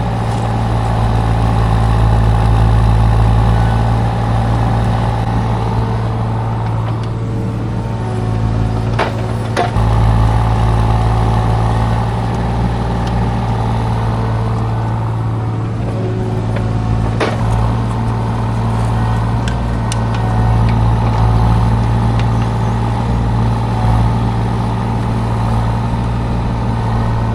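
Mini excavator's engine running steadily while digging, with a few sharp clanks from the bucket and arm.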